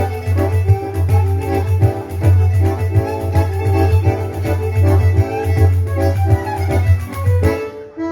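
Instrumental music: sustained organ-like keyboard chords over a steady bass line, with a brief dip in loudness just before the end.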